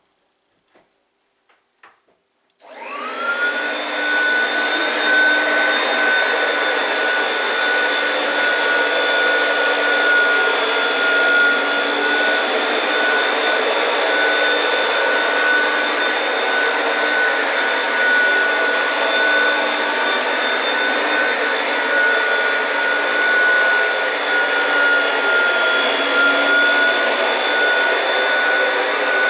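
A few small clicks, then an Oreck upright vacuum cleaner switches on about two and a half seconds in, its motor whining up to speed within a second, and runs steadily while vacuuming.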